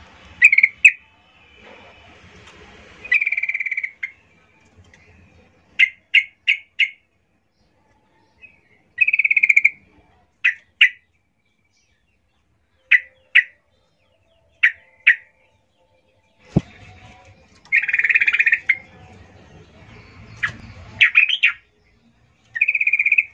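Female yellow-vented bulbul calling to draw a male: short sharp chirps, singly and in quick runs of three or four, between longer buzzy chattering calls. A single knock comes about two-thirds of the way through.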